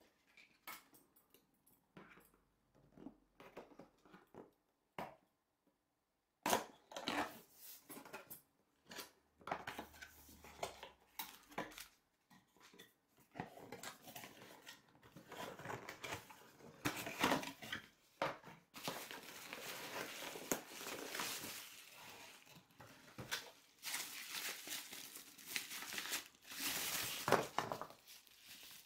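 Cardboard camera box being opened and its packaging handled: irregular scrapes, taps and crinkling of cardboard flaps and plastic wrap. It grows busier and louder in the second half.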